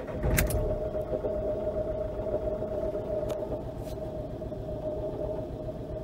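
Renault Kangoo's 1.5 dCi diesel engine starting about half a second in, then idling with a steady whine over a low rumble. Its owner, after listening with a stethoscope, takes the noise for a failing alternator rather than its overrunning pulley clutch.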